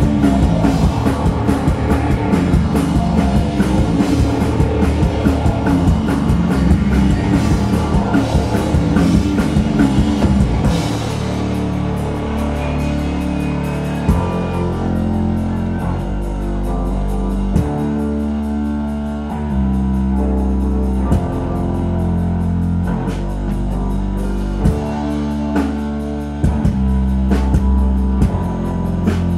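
Live rock band playing an instrumental passage on electric guitar, bass and drum kit. About eleven seconds in the dense drumming stops, leaving bass and guitar holding long notes that change every second or two, with only a few single drum hits.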